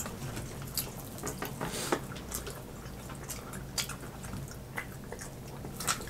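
Wet mouth sounds of people eating fried chicken wings: scattered short smacks and clicks from chewing and picking meat off the bones.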